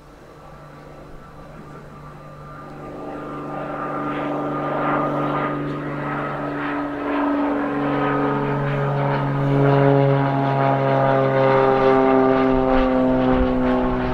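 Piper PA-28RT-201T Turbo Arrow IV's turbocharged six-cylinder engine and propeller running at takeoff power. The sound grows steadily louder as the plane approaches, and its pitch drops a little in the second half.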